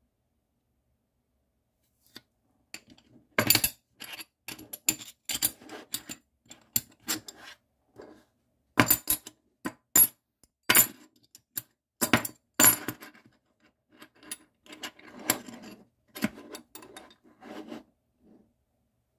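Solid metal replica credit chips clinking and clacking against each other and the tabletop as they are handled, overlapped and set down in a row: an irregular run of sharp metallic clicks and taps starting about two seconds in, with a few louder knocks among them.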